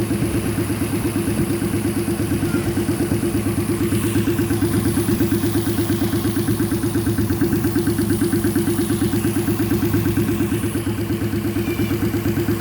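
Car engine fitted in a custom motorcycle, idling steadily with an even pulse.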